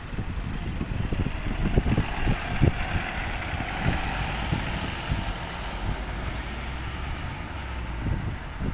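A Stagecoach bus pulling past: its engine running with road and tyre noise that swells a couple of seconds in, while gusts of wind buffet the microphone.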